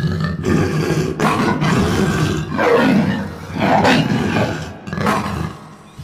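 Big cat roaring and growling: a run of long, rough roars that rise and fall in pitch, swelling several times.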